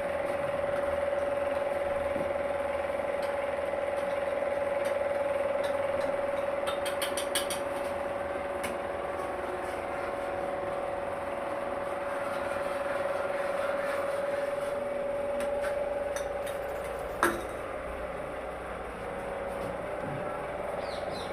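A steady mechanical hum with one clear pitch, with a few light clicks and a single sharp knock about seventeen seconds in.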